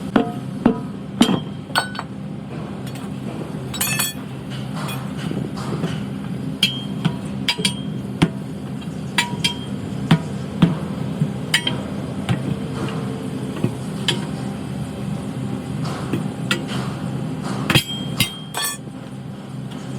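Metal tools clinking and tapping during a tubeless tyre repair: sharp, irregular strikes with a brief ring, over a steady low hum.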